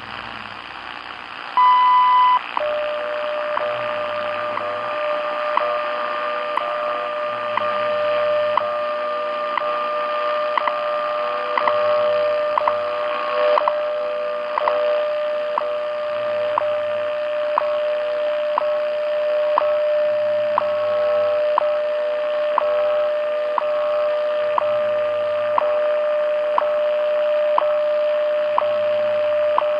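WWV time signal received on 10 MHz shortwave through a radio's speaker: a short 1000 Hz beep about two seconds in marks the top of the minute, then a steady 600 Hz tone runs with a brief tick once a second. Faint low pulses of the station's time code and a light static hiss lie underneath.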